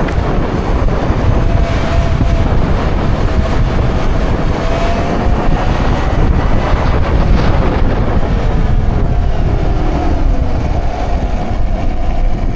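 Wind rushing loudly over the microphone of a moving Talaria electric dirt bike, with a faint electric motor whine that slides up and down in pitch.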